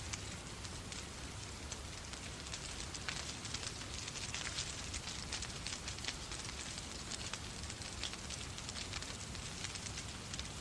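Wood fire crackling in a fireplace, with frequent sharp pops, over a steady hiss of rain.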